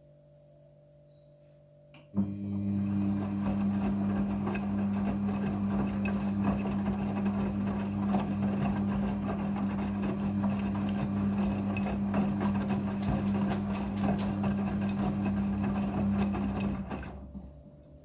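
Midea front-loading washing machine during its rinse cycle: after a click about two seconds in, a steady hum with rushing water runs, then dies away near the end.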